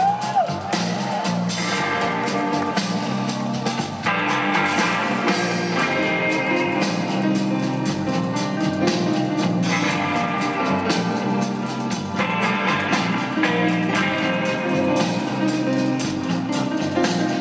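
Live rock band playing an instrumental passage, with electric guitars, bass, drums and keyboards, heard from within the audience.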